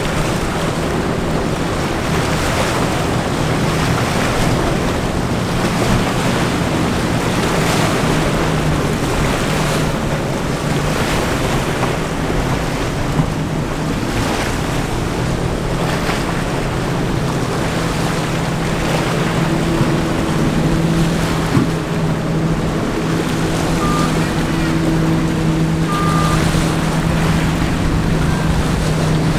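Powerboat engine hum, steady and getting stronger over the second half as a boat runs through the inlet, over the wash of waves and wind buffeting the microphone. Two short high tones sound near the end.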